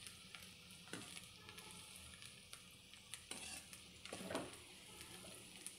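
Chopped vegetables stir-frying in oil in a karai: a faint sizzle, with a few scrapes of the spatula about a second in and again around three and four seconds.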